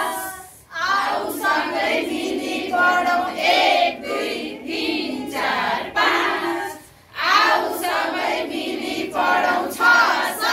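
A group of women singing a Nepali children's song together, with two short breaks between lines.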